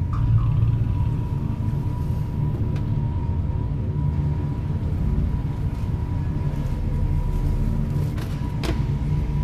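Steady low rumble with a faint steady high tone held over it, and a sharp click near the end.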